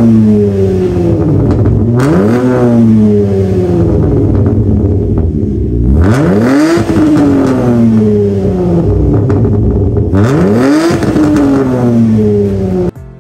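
Hyundai Tiburon V6 engine free-revving through its existing, already non-stock exhaust, before the new full system is fitted. A rev is already falling as the clip begins, then three more blips about four seconds apart. Each climbs quickly and sinks slowly back toward idle, and the sound cuts off suddenly near the end.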